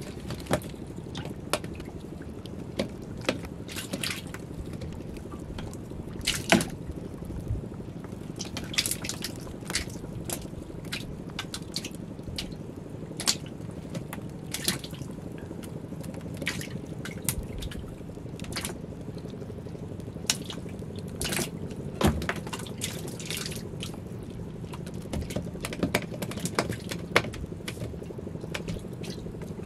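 Irregular drips, small splashes and light knocks as a multi-hook handline with sardines on its hooks is hauled up into a small wooden boat, over a steady low background noise.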